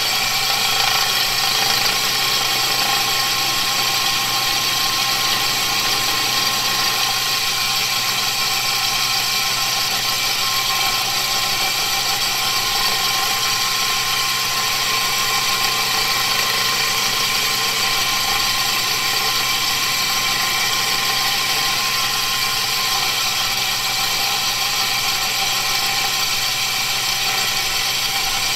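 An electric motor spins a sharpening wheel on a long arbor and runs steadily, while a steel blade is held against the turning wheel to put an edge on it.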